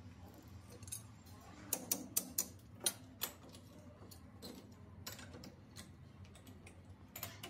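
Sharp metal clicks and taps of a chuck key and hand tools working the jaws of a four-jaw lathe chuck that holds a weld-repaired pinion gear. A quick run of clicks comes about two seconds in and scattered clicks follow later, over a low steady hum.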